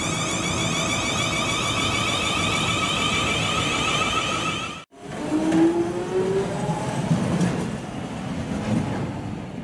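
A steady droning hum that cuts off abruptly about five seconds in, followed by a London Underground train moving past a platform, its traction-motor whine rising in pitch as it gathers speed.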